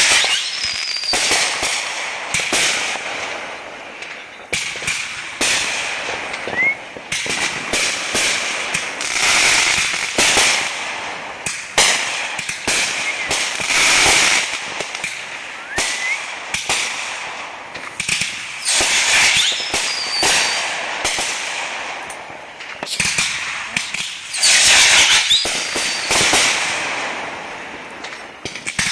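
Aerial fireworks going off: a near-constant run of sharp bangs and dense crackling from bursting shells, swelling into thicker volleys several times. A few short rising whistles cut through the bangs.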